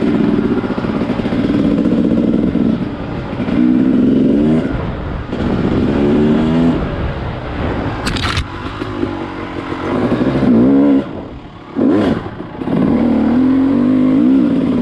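A motor vehicle's engine running hard, its pitch climbing and dropping back several times as it revs up through the gears. Two short sharp noises come about eight and twelve seconds in.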